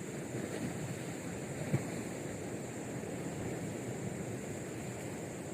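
Steady wash of sea surf with wind on the microphone, and a single short knock a little under two seconds in.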